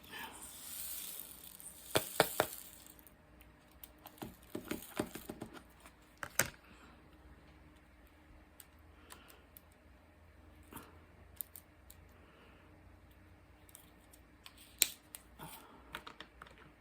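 Small handling noises from working a diamond-painting canvas: a soft rustle in the first few seconds, then scattered light clicks and taps, with a sharper click about two seconds in and again near the end.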